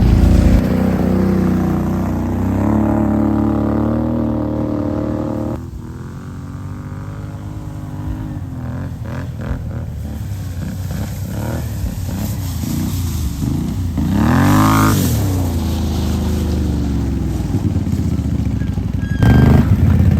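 Off-road vehicle engines running on a trail, their pitch rising and falling with the throttle, with one sharp rev up and back down about fourteen seconds in.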